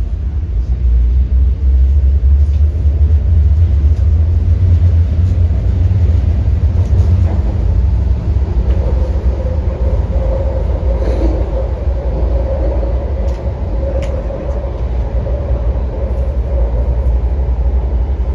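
Interior of an MTR Kwun Tong Line CNR Changchun electric multiple unit running between stations: a heavy, steady rumble, strongest in the first several seconds. A steady mid-pitched tone joins about halfway through, along with a few sharp clicks.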